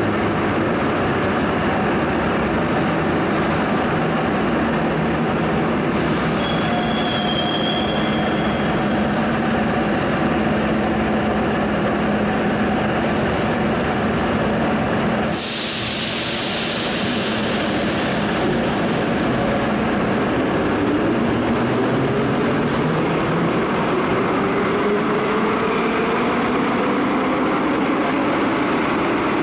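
Type 81-717.4/714.4 metro train in a station: a steady rumble and hum, with a brief high squeal about seven seconds in. About halfway a sudden loud hiss cuts in and slowly fades, and in the last third a motor whine rises steadily in pitch.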